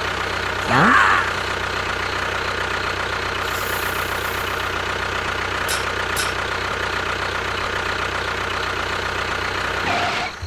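Engine idling steadily, with a loud rising sweep in pitch about a second in.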